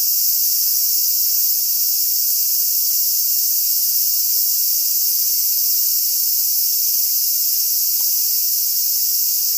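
Outdoor insect chorus: a steady, high-pitched shrilling that does not let up.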